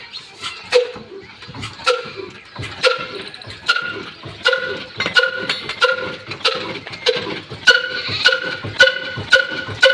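Old Ruston Hornsby diesel engine running in slow, separate exhaust beats with a short ringing note on each. The beats quicken from about one a second to nearly two a second as the engine picks up speed after starting.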